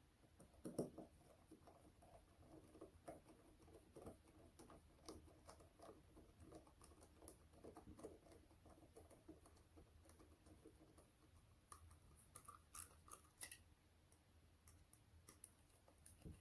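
Faint, scattered clicks and scratches of a small screwdriver turning M3 screws into a 3D-printed plastic cover, with a few louder clicks about a second in and again near thirteen seconds.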